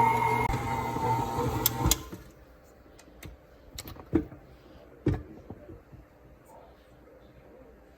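A small electric motor runs with a steady hum and cuts off about two seconds in, followed by a few light knocks and clicks.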